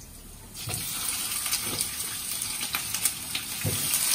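A whole crucian carp dropped into hot oil in a frying pan: the oil bursts into a loud, steady sizzle about half a second in, with sharp spattering pops throughout.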